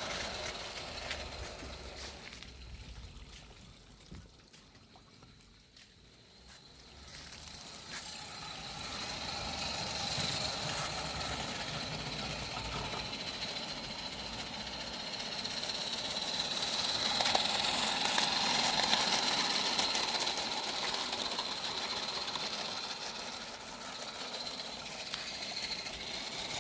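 Small Accucraft Edrig live-steam garden-railway locomotive running with its coal train, a steady mechanical rattling clatter. It fades to near silence a few seconds in, returns suddenly, then grows louder, with a sharp louder moment near the end.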